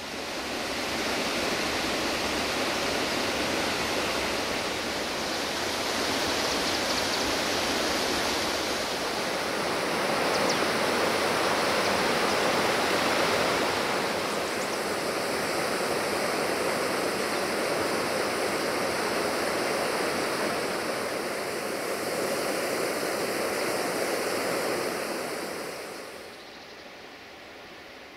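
Rushing mountain stream and small waterfall: a steady rush of water, fading out about two seconds before the end.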